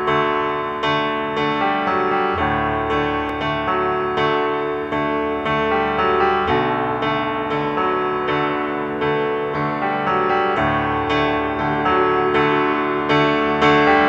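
Background piano music: a gentle keyboard melody of evenly paced notes, about two a second, over held chords.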